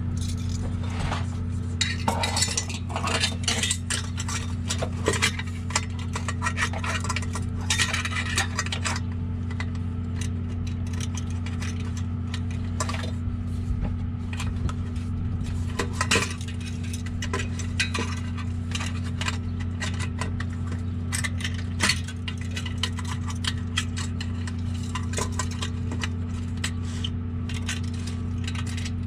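Metal exhaust clamp hardware clinking and rattling in a long run of sharp clicks, busiest in the first third, as the new clamps, bolts and nuts are handled and fitted. A steady low hum runs underneath.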